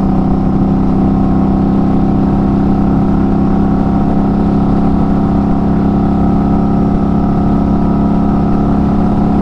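Indian Scout Bobber's 1133 cc V-twin running at a steady cruise, its pitch held even by a throttle lock set at road speed.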